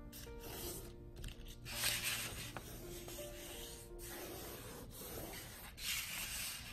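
Hands rubbing and sliding over a folded sheet of A4 paper, smoothing the creases flat and turning the sheet. Two louder papery swishes come about two seconds in and near the end, over soft background music.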